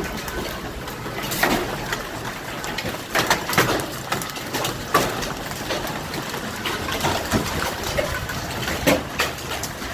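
Hailstorm with quarter-sized and larger stones: a steady hiss of falling hail and wind, broken by sharp separate cracks of big hailstones striking hard surfaces every second or two.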